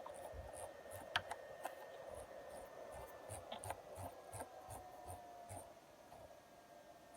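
Cooling fan inside a Behringer DeepMind 12 synthesizer running with a faint, steady whine, one tone drifting slowly lower; the owner is unsure whether this fan noise is normal. Scattered light clicks and soft taps sound over it.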